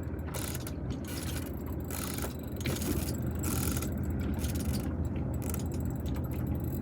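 Fishing reel working against a hooked fish that is taking line, with mechanical gear clicking coming and going over a steady low rumble.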